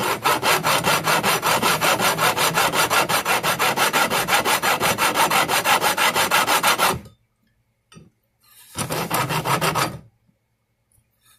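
Large flat two-way file rasping rapidly back and forth along the edge of a guitar fretboard, flush-cutting the overhanging ends of very hard gold EVO fret wire. The strokes come several a second and stop about seven seconds in. A second short burst of filing follows a second or so later.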